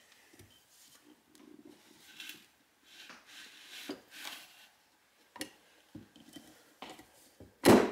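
Large hand lug crimper being squeezed shut on a copper open-barrel ring terminal over two wires. Quiet scraping and creaking under heavy force, a few light clicks, and one sharp loud clack near the end.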